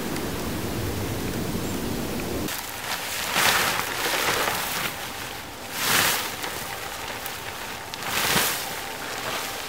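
Rustling swishes of movement through dry forest litter, coming in several separate surges. For the first couple of seconds there is a steady low rumble of noise, and it cuts off suddenly.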